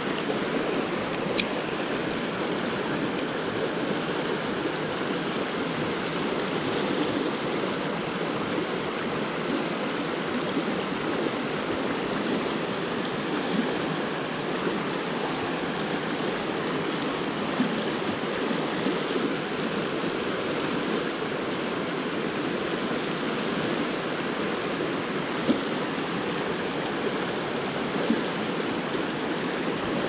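Shallow creek rapids rushing steadily over rocks, the fast water running high.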